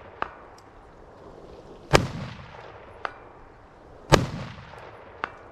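Two AR-15 rifle shots about two seconds apart, each followed about a second later by a faint ping of the bullet striking the distant steel target; another such ping comes just after the start.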